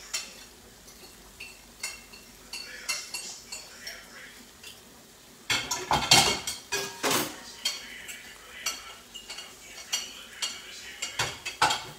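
Kitchen clatter: metal utensils and pans clinking and knocking, a few scattered clicks at first, then quick clusters of them from about halfway through.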